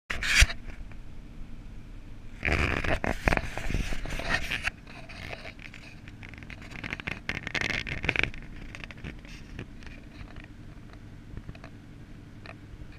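Car cabin noise while driving: a steady low engine and road hum, with two spells of scraping and rubbing as the camera is handled and turned, about two and a half seconds in and again about seven seconds in.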